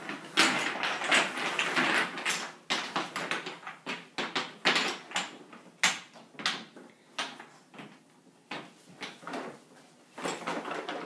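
Wooden toy blocks clacking as they are rummaged out of a plastic bin and set down and stacked on a wooden floor: a quick, irregular run of knocks and clatters that thins out for a few seconds after the middle.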